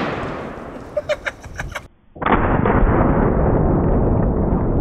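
Fading echo of a 10-gauge single-shot shotgun blast as a .700 Nitro Express round bursts the barrel, with several sharp clicks and rattles about a second in. Then a slowed-down replay of the blast takes over: a long, deep, continuous rumble.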